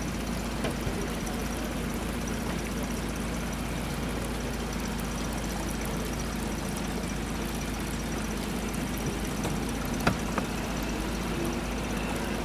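Outboard boat motor running steadily at low speed, with two short knocks about ten seconds in.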